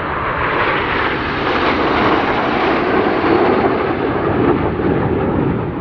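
A formation of BAE Systems Hawk T1 jet trainers flying past, their Adour turbofan engines giving a loud jet noise that swells to a peak two to three seconds in and eases slightly toward the end.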